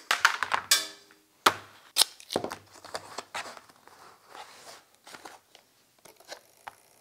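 Hands working a small craft-stick and battery-holder assembly and a thin black plastic food container: a sharp click from pliers at the start, then a run of clicks, crackles and crinkles of plastic being pressed and handled, dying away near the end.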